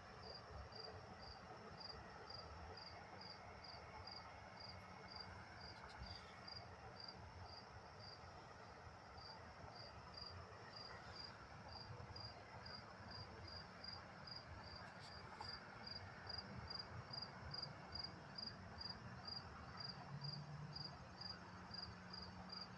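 A cricket chirping steadily and faintly, in short, high, evenly spaced chirps at about two a second.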